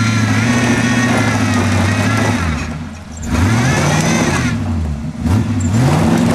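Jeep's engine straining under load as it crawls over a rock ledge, revved up and back down twice, once about halfway through and again near the end.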